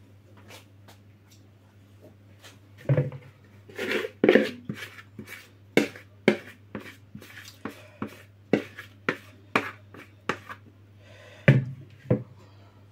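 Spoon and spatula scraping and knocking against a plastic mixing bowl and a metal cake tin as chocolate cake batter is scraped into the tin: a run of short knocks and scrapes, about two a second, loudest about three seconds in and near the end, over a steady low hum.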